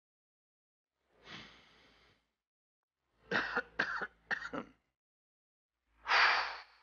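A person coughing, four short coughs in quick succession, after a soft breath. Near the end comes one forceful blown-out exhale, an exasperated sigh.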